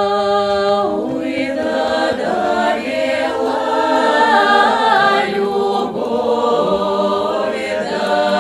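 Unaccompanied Russian folk song sung by several voices in long, drawn-out notes. A held note gives way about a second in to a new phrase of overlapping voices moving in pitch.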